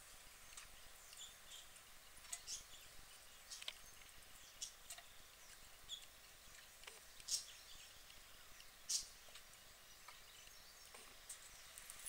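Near-quiet outdoor background with scattered short, high-pitched ticks and brief chirps; the two loudest ticks come about two-thirds of the way through.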